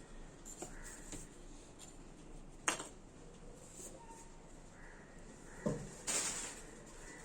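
Objects being handled during unpacking: a sharp knock just under three seconds in, then another knock and a short scraping rustle near the end.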